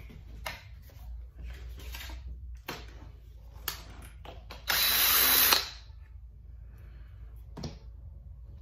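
Cordless drill-driver running in one short burst of about a second, unfastening an RC truck's wheel. Light clicks and knocks of the parts being handled come before and after it.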